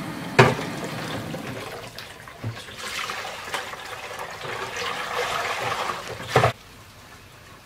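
Kitchen tap running into a stainless-steel sink while an aluminium pot and a pan are rinsed by hand. A loud metal clank comes about half a second in and another just before the water stops, about six and a half seconds in.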